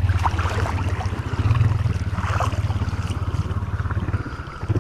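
Honda Rancher ATV's single-cylinder engine running with a low, evenly pulsing rumble as the quad wades through deep swamp water, with water churning and splashing around it. The engine rumble drops out a little past four seconds in.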